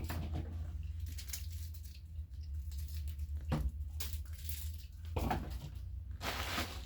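Rustling and light knocks of food packages and drink containers being handled and set into a fridge, a handful of separate handling noises spread through, over a steady low hum.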